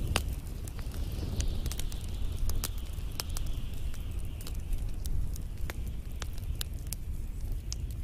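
Open wood fire with burning pine cones crackling: irregular sharp pops and snaps over a steady low rumble and faint hiss of the flames.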